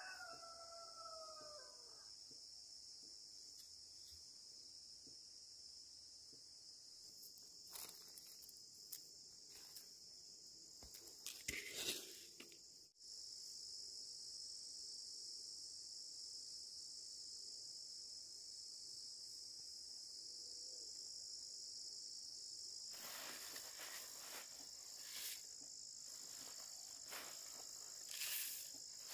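Steady, high-pitched insect chorus, faint, with a rooster crowing in the first couple of seconds. Scattered light knocks and rustles come and go over it.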